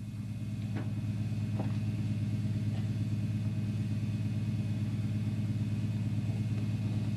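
Engine of a front-loader farm tractor running steadily, a low even hum that grows a little louder over the first couple of seconds.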